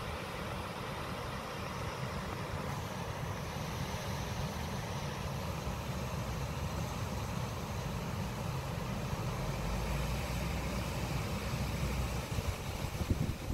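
Water pouring over a low mill dam in a steady rush, with wind buffeting the microphone in low gusts that grow stronger near the end.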